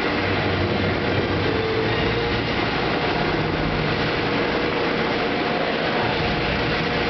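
Helicopter idling on the ground just after landing, its turbines and rotor running steadily with a dense, even noise and a faint high whine.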